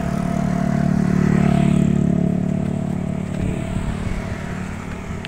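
A motorcycle passing close by, its engine getting louder to a peak about two seconds in and then fading away.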